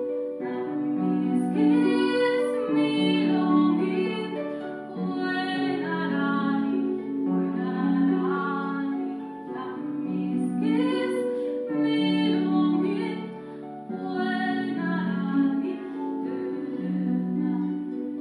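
Concert harp playing a slow, gentle accompaniment to a woman singing a traditional Scottish Gaelic song, in two sung phrases. The harp carries on alone near the end.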